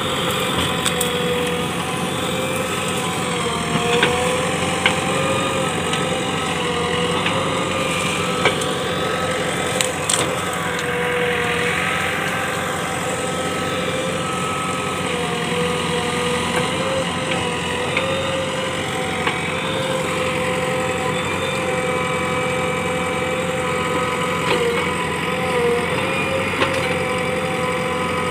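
JCB 3DX backhoe loader's diesel engine running steadily while the backhoe arm digs into brush, with a few sharp clicks and knocks from the working digger.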